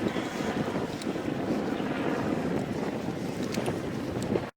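Steady rumble of helicopters flying overhead, mixed with wind buffeting the microphone; it cuts off abruptly near the end.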